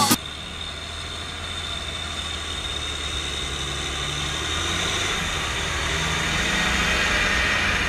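MTZ Belarus 1523.3 tractor's diesel engine running steadily under load while pulling a plough through the field, getting gradually louder as the tractor comes closer.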